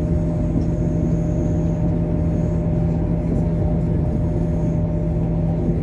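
Steady running noise of a moving train heard from inside the carriage: a low rumble with a held hum, unchanging throughout.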